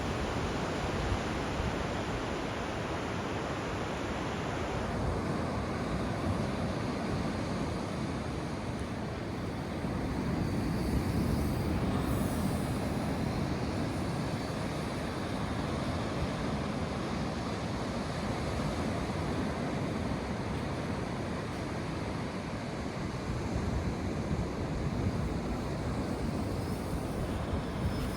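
Steady wind blowing across the microphone, with surf washing on the beach beneath it; the rumble swells a little about ten seconds in.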